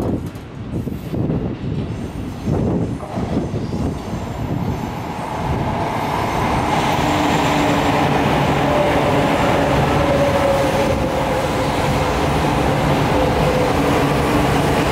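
E4 series Max double-decker Shinkansen train moving along the platform: rumbling wheel and running noise that grows louder about six seconds in and then holds steady, with a faint whine of several tones over it.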